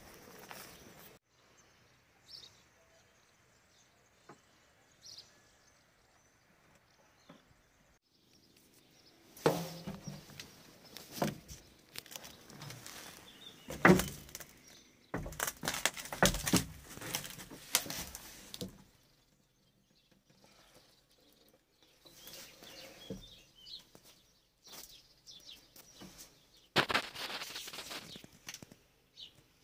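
Irregular knocks and clatter of handling on and around the parked articulated dump truck, in two spells, the loudest knock about 14 seconds in. Birds chirp faintly in the quiet stretch at the start.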